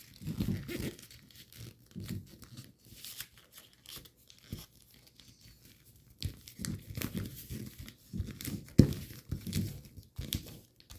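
Thin origami paper rustling and crinkling as it is handled and creased through an inside reverse fold. Quieter for a couple of seconds in the middle, then busier again with sharper crackles near the end.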